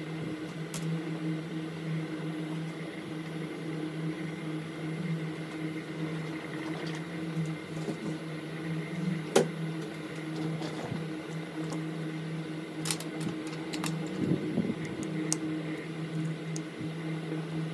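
Steady machine hum, with a few light clicks and taps over it, the sharpest about nine seconds in and a small cluster near thirteen seconds.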